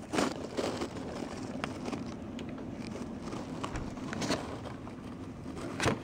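Snow crunching and crackling right against the microphone, with a handful of sharper, irregularly spaced clicks.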